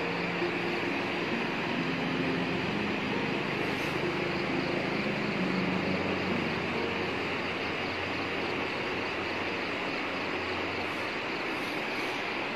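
Steady rushing roar of a muddy landslide debris flow pouring downhill, with faint background music notes over roughly the first half.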